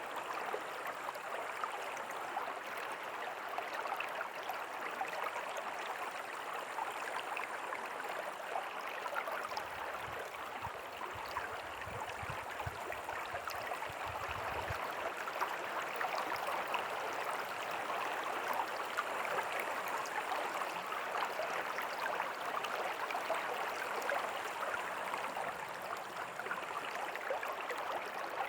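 River water flowing steadily, a continuous rushing babble of a stream over stones. A low rumble comes in for about five seconds near the middle.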